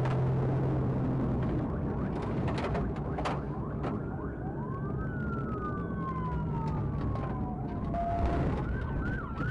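Police car siren wailing, slow rising and falling sweeps that come in a few seconds in, over steady road and engine noise with a few sharp clicks.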